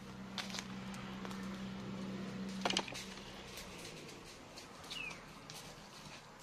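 Horse hooves in a sandy pen: soft, irregular thuds and crunches, with one sharp crack about two and a half seconds in. A steady low hum runs underneath and fades out around the three-second mark, and a bird gives one short falling chirp about five seconds in.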